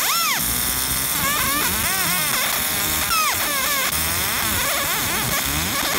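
Galvo laser marker engraving a design on metal in continuous passes: a steady whine with a low hum, crossed by repeated arching tones that rise and fall in pitch as the scanning mirrors trace the pattern.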